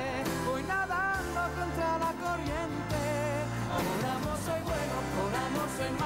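Telenovela closing theme song: a singer's voice, wavering in vibrato, over a pop band backing.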